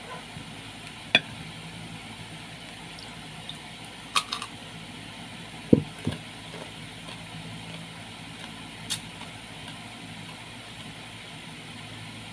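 Someone chewing papaya with mouth sounds, a few sharp clicks, and a dull thump about halfway through, over a steady low hum.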